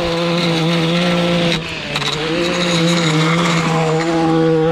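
Gas stick edger's small two-stroke engine running at high revs as its blade cuts the lawn edge along the pavers. The engine eases off briefly about a second and a half in, then picks back up.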